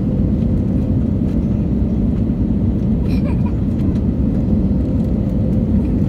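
Steady cabin noise of an Airbus A320 on its landing approach: a low, even rumble of the wing engine and airflow, with a faint steady hum.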